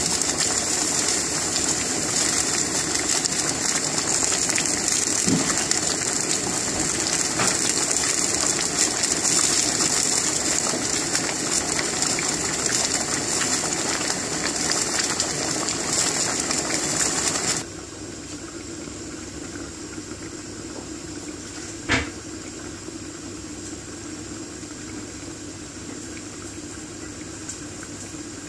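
Pot of red lentils boiling hard on a gas burner, a loud, steady bubbling and frothing. About two-thirds of the way through, the sound drops suddenly to a much quieter bubbling. A single short knock comes near the end.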